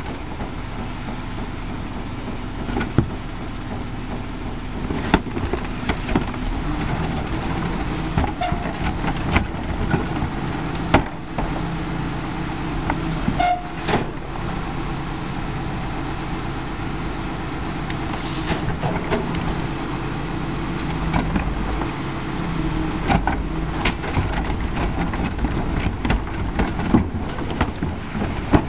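Diesel engine of a Crane Carrier rear-loader garbage truck running steadily, with scattered knocks and bangs as plastic carts are tipped into the Heil rear-loader hopper.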